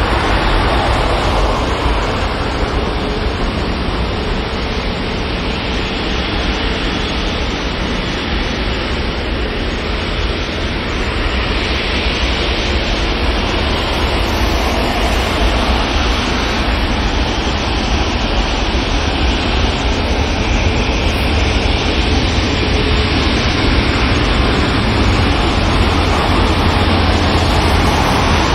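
Airbus A380-800's four Rolls-Royce Trent 900 turbofans running steadily as the jet taxis and turns on the runway: a continuous rushing jet noise with deep rumble, dipping slightly about a third of the way in and growing a little louder in the second half.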